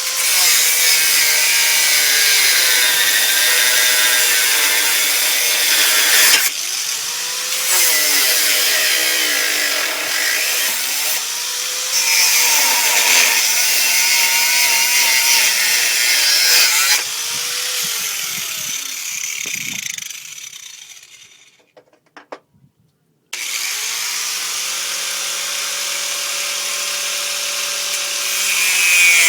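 Corded Drill Master 4½-inch angle grinder cutting pencil rod with a cutoff disc: a loud, harsh grinding hiss, the motor's whine dipping and recovering as the disc bites. It spins down to a stop about 20 s in, then starts up again a couple of seconds later, runs free, and bites in again near the end.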